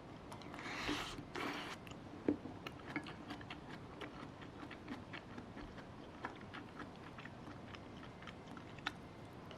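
Someone eating: faint chewing with many small irregular clicks and one sharper click a couple of seconds in. About a second in there are two brief hissy rustles.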